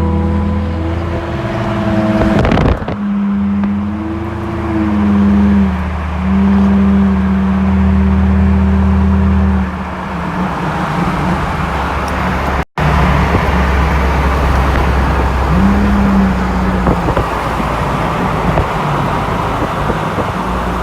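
Car engine revving, its pitch rising and falling several times, then running on more steadily. The sound drops out abruptly about twelve seconds in.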